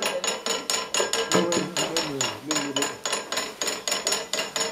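Iron noria (chain-and-bucket well pump) being turned by hand with its lever arm: the mechanism clicks quickly and evenly, about five metallic clicks a second.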